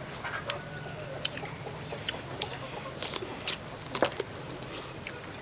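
Close eating sounds of pickled raw crab: short, irregular crunches, clicks and smacks as crab shell and meat are bitten and chewed, the sharpest crack about four seconds in, over a low steady hum.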